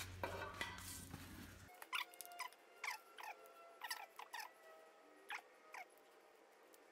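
Short, faint squeaks of rubber-insulated wiring and plastic rubbing as hands tuck the charger lead in beside the motorcycle battery, about every half second. A low electrical hum cuts off suddenly near the start.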